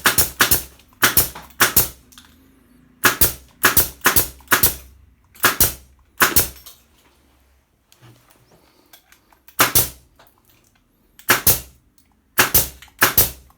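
Makute pneumatic nail gun firing nails into metal: about fifteen sharp shots, often in quick pairs or runs of three or four, with pauses of one to three seconds between.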